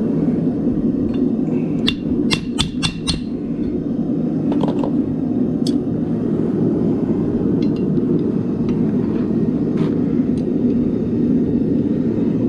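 Gas forge burner running with a steady rushing noise, while a hammer taps lightly on a hot steel knife blade on an anvil to straighten it: a quick run of five or six taps about two seconds in, then a few single taps spaced out.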